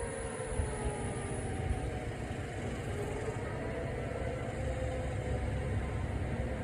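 Outdoor warning sirens winding down, several siren tones falling in pitch and fading away over the first few seconds. A steady low rumble sits underneath.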